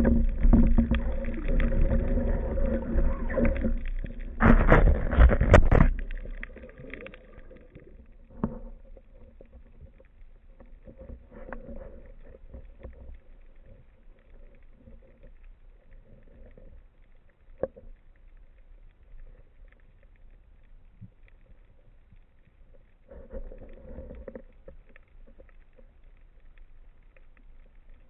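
Underwater sound picked up by a camera in its waterproof housing: loud water rushing and bubbling for the first six seconds as the diver leaves the surface, then faint, muffled underwater noise with a few sharp clicks and a short swell of water noise near the end.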